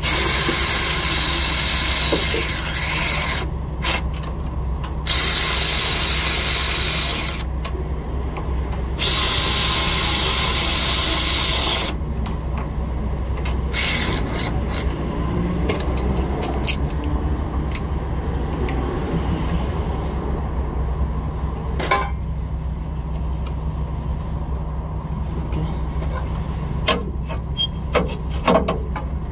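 An air ratchet on a long extension runs in three bursts of a few seconds each, with a loud hiss, working the mounting bolts of a truck's DEF dosing injector. A few sharp metal clinks follow later.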